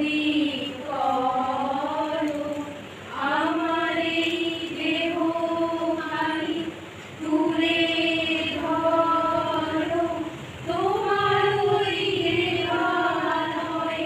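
A small group of female voices singing a slow song together in unison, holding long notes in phrases of a few seconds with short breaks between them.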